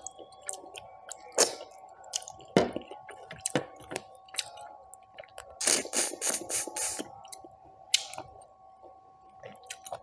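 Close-miked eating of mutton curry on the bone by hand: wet chewing, lip smacks and sucking at the meat and bone, with a denser run of louder sucking noises about six to seven seconds in. A faint steady hum runs underneath.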